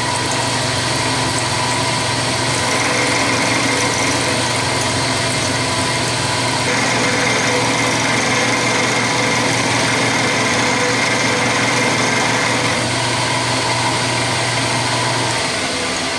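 Vertical milling machine running, its end mill cutting a groove in a 303 stainless steel shaft on the finishing pass, a steady machining noise with a fixed whine. A low hum under it drops out about a second before the end.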